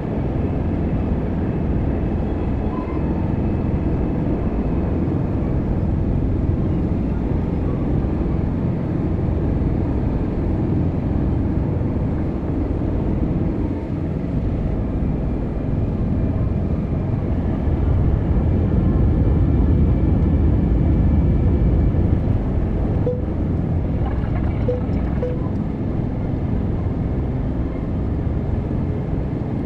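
Airbus A320 cabin noise during the descent: a steady low roar of the engines and rushing air, with faint steady tones over it. A few faint clicks come a little past two-thirds of the way through.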